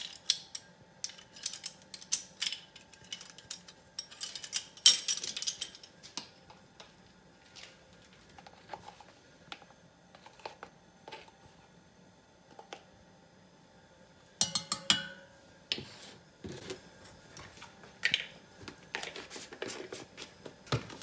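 Small clicks, taps and clinks from a measuring spoon and a plastic spice jar as ground cinnamon is scooped out and tipped into the pot. The clicks come in clusters, with a quiet stretch of several seconds in the middle.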